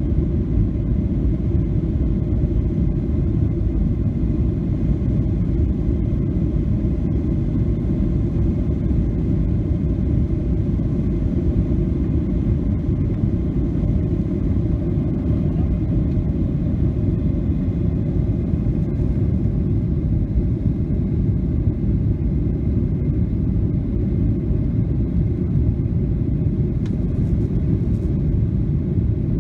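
Jet airliner's engines at take-off thrust, heard from inside the cabin as a loud, steady, low rumble through the take-off roll.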